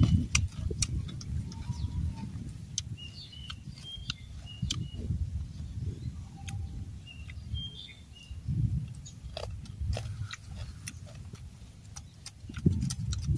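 A low, uneven rumble and scattered small clicks close to the microphone, with short high bird chirps several times in the background.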